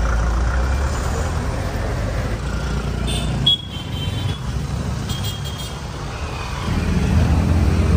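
Road traffic of motorcycles and cars, a steady low engine rumble. It drops suddenly about halfway through and swells again near the end.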